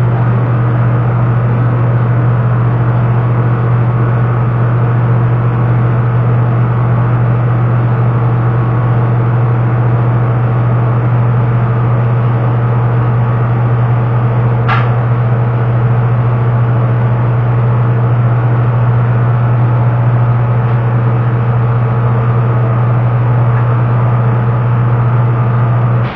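Steady, loud machine drone with a strong low hum that does not change, and a single brief click about fifteen seconds in.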